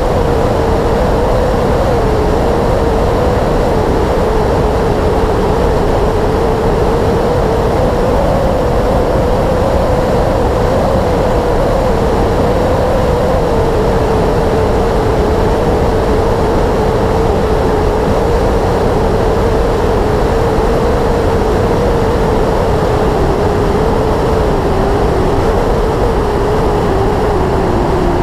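Yamaha YZF-R6S sport bike's inline-four engine running at a steady cruise, its single engine note wavering slightly in pitch over a loud, even noise of wind and road.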